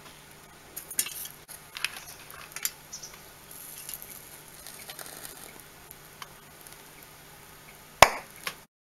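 Soap bubbles filled with gas from the electrolysis of water are lit by a flame and go off with one sharp, loud pop about eight seconds in, followed by a smaller pop. Before that there are only faint handling clicks and rustles.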